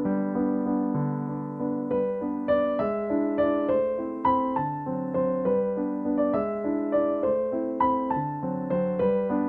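Background music: a gentle piano or electric piano melody, with notes struck at an even pace over sustained lower chords.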